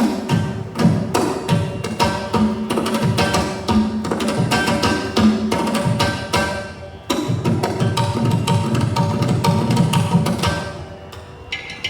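Background music with dense percussion: rapid drum and wood-block-like strikes over sustained instrumental tones, growing quieter about ten seconds in.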